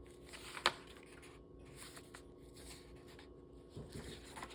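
Paper pages of a handmade junk journal being turned and handled, a soft rustling with one sharp paper flick about 0.7 s in and more rustling near the end.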